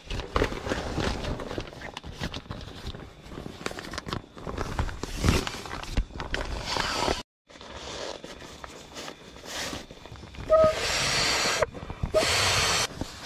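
Nylon sleeping bag and inflatable sleeping pad rustling and crinkling as they are handled and spread out, with many small irregular scrapes and clicks. Near the end come two loud stretches of rushing, hiss-like noise, each about a second long.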